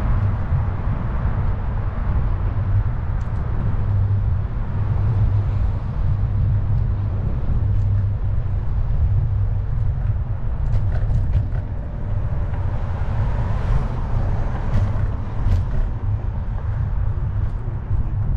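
Wind buffeting a handlebar-mounted microphone and road rumble from an electric scooter under way, a steady low rumble with a few faint ticks in the second half.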